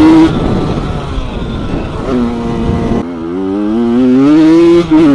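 Suzuki RM 80/85 two-stroke single-cylinder motocross engine held at high revs up a jump face, then the throttle shuts suddenly while the bike is in the air. The engine picks up again about two seconds in on landing, and the revs climb steadily with a brief dip near the end.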